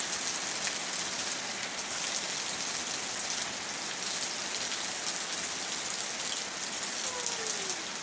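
Heavy rain pouring down steadily onto a waterlogged yard, with water streaming off the roof edges and splashing onto the wet ground.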